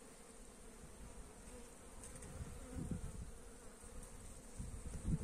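Honeybees buzzing at the hive entrance as foragers fly in and out, a faint steady hum. A low rumble swells underneath about halfway through.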